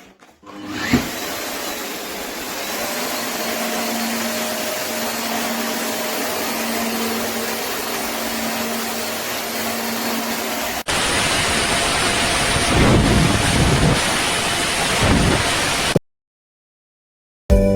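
Folletto vacuum cleaner running steadily, with a constant hum under its airflow noise. About eleven seconds in the sound cuts to a louder, rougher run with a few low thuds, then stops abruptly.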